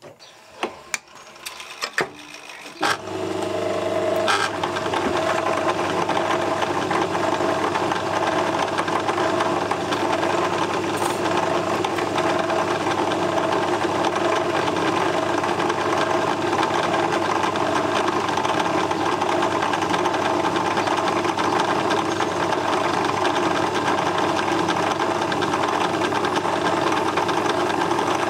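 A few sharp clicks of tool handling, then about three seconds in a metal lathe starts and runs steadily, spinning a four-jaw chuck. A small drill in a tailstock drill chuck bores into the brass workpiece, the first step toward a 10 mm reamed hole.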